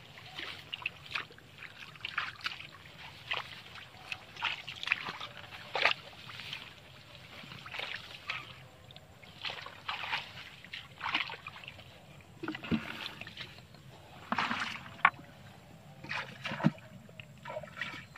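Hands sloshing and splashing in shallow muddy water, groping through mud and grass for fish, in irregular splashes that come every second or so.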